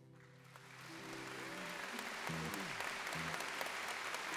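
Audience applause swelling up over the first couple of seconds and then going on steadily, while the last held notes of music fade out underneath near the start.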